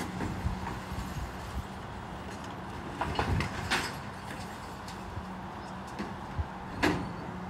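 Refuse collection lorry running with a steady low hum while wheelie bins are handled at its rear bin lift, giving a cluster of clatters and knocks about three seconds in and a sharper knock near the end.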